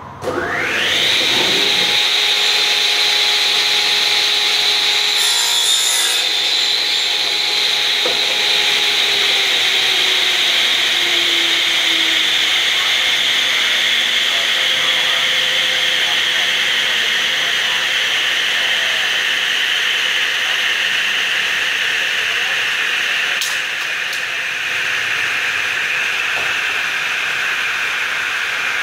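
Large radial arm saw motor starting up, its whine rising fast in the first second, then the blade spinning steadily at a high, even whine. A click and a slight drop in level come about 23 seconds in.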